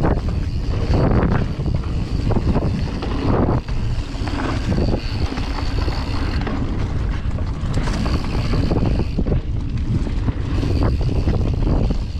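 Mountain bike descending a dirt singletrack: wind buffeting the bike-mounted camera's microphone over the steady rumble of tyres rolling on dirt, with scattered bumps and knocks from the trail.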